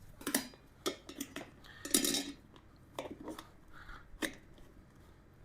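Metal tools and parts clinking and knocking in a few irregular sharp clacks as a tire-holding clamp is handled at a motorcycle wheel rim during tire mounting; the loudest clack comes about two seconds in.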